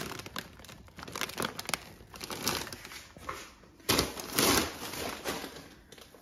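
Crinkling, rustling noise with many small clicks, coming and going in patches. It is loudest about four to five seconds in and fades away near the end.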